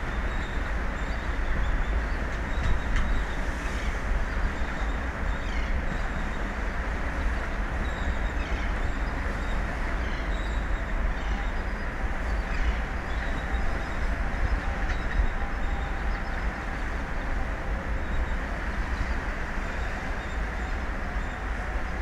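Steady wind and sea noise with a heavy, unbroken low rumble of wind buffeting the microphone.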